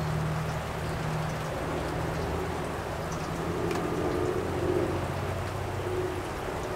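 Light rain falling steadily, with a faint low hum underneath.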